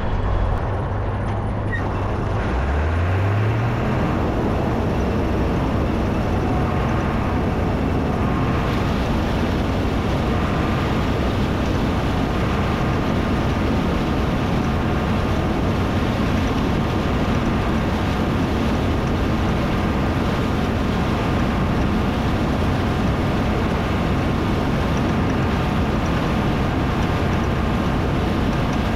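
Combine harvester's diesel engine throttled up about three seconds in, its pitch rising, then running steadily at high speed while it warms up.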